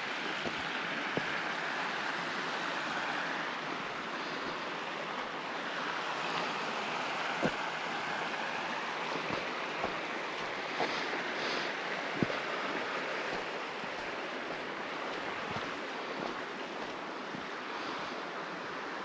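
Steady rushing of a river rapid, a constant even roar of water, with a few sharp clicks scattered through it.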